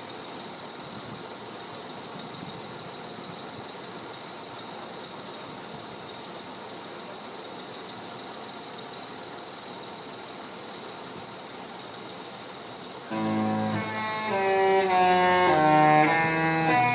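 Steady background hiss, then, about thirteen seconds in, the Disney Dream cruise ship's musical horn starts suddenly and loudly, playing a tune in stepped notes that change pitch every half second or so.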